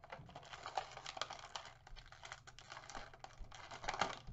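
Hard plastic action-figure parts and packaging being handled: an irregular run of light clicks and rustles, a little louder near the end.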